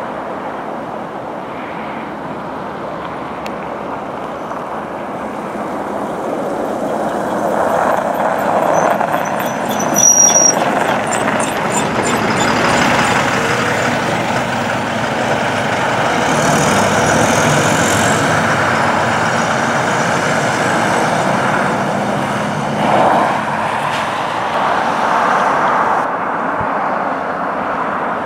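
Diesel express coach approaching and driving past, its engine and tyre noise on the snowy road swelling to a peak around ten seconds in, with a short high squeal there, then running on as it pulls away.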